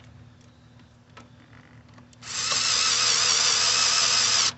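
A cordless power drill driving in the radio's mounting screw: a steady whirring that starts about halfway through, runs for about two seconds and cuts off sharply. It is preceded by a few faint clicks.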